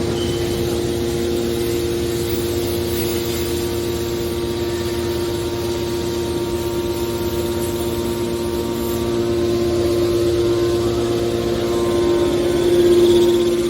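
Hydraulic scrap metal baler running: a steady machine hum with one strong tone, swelling briefly near the end.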